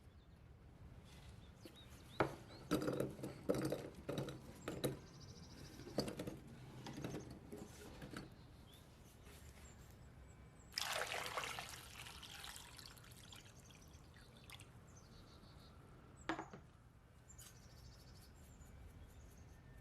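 A run of light knocks and taps, then liquid pouring for about two seconds, and a single knock a few seconds later.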